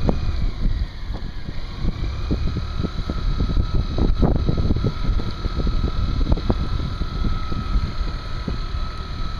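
Suzuki 175 outboard motor running under load while towing a grounded boat, with a steady whine that settles in about two seconds in, and wind buffeting the microphone.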